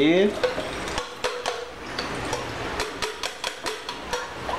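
Aluminium saucepan knocked and shaken against a plastic strainer to tap out the last of the drained cooked carrot: a run of sharp, irregular taps and light clatters, several a second.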